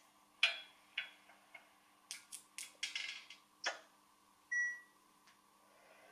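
PIKO ICE 4 H0-scale model train's sound decoder playing through its small loudspeaker: a run of short clicks and hissing puffs, then a single short beep about four and a half seconds in, over a faint steady hum.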